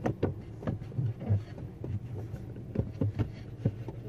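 Irregular light knocks and clicks of hands and the camera being handled around the car's interior trim, over a steady low hum.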